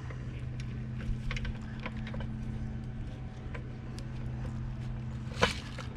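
Small clicks and taps of a floor jack's metal parts being handled as its bolts are worked back into place during reassembly, with one sharper click about five seconds in, over a steady low hum.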